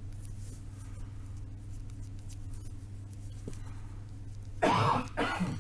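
Fine-tip ink pen scratching faintly on a small card-stock sketch card during drawing, over a steady low hum. A short, louder vocal sound comes near the end.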